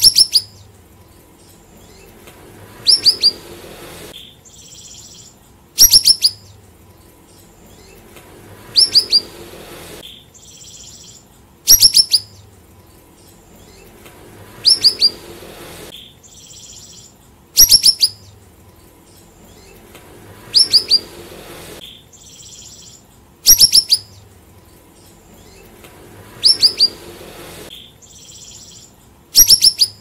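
Siri-siri songbird calling: a quick burst of three or four sharp, high, down-slurred notes, repeated about every three seconds, with softer, buzzier notes in between.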